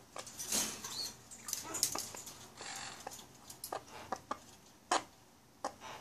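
A cockatoo's beak biting and gnawing into raw pumpkin flesh: irregular crunching clicks and short scraping passages, one sharper click about five seconds in.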